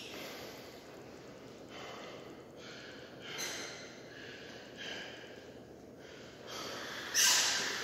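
A man breathing heavily through nose and mouth after exercise: a string of separate loud breaths about a second apart, the strongest and sharpest one near the end.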